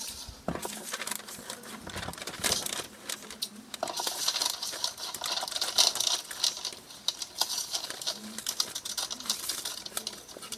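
Scissors cutting through a sheet of advertisement paper: a quick run of snips with the paper crackling and rustling as it is handled and turned.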